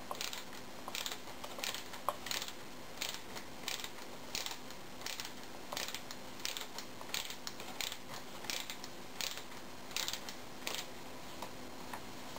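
Socket-wrench ratchet turning a cap nut on a threaded rod, its pawl clicking in short bursts about twice a second with each back-and-forth swing of the handle, drawing a star-fangled nut down into a bicycle fork's steerer tube.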